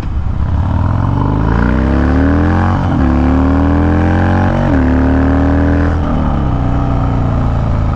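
Harley-Davidson Dyna's V-twin through a Bassani Road Rage exhaust, accelerating on the road. Its pitch climbs, drops sharply with an upshift about three seconds in and again after about four and a half seconds, then settles lower at an easy cruise near the end.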